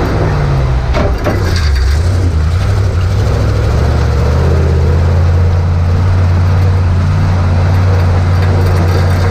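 1969 Chevrolet C60 dump truck's 427 big-block V8 running as the truck drives along a dirt track. The engine note dips about a second in, with a couple of knocks, then holds steady.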